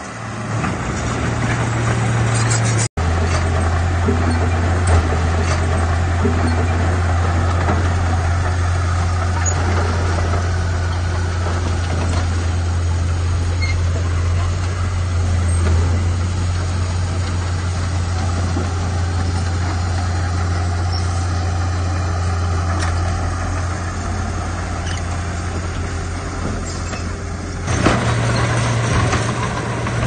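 Diesel engines running steadily: a Komatsu D31P crawler bulldozer at first, then after a sudden cut about three seconds in, a 5-ton dump truck's engine with a lower, steady hum as its bed tips up to unload rocks. The bulldozer's higher hum returns near the end.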